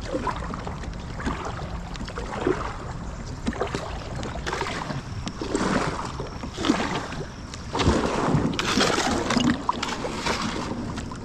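Kayak being worked through a shallow, rocky creek: irregular scrapes and knocks of the hull on rocks mixed with paddle splashes.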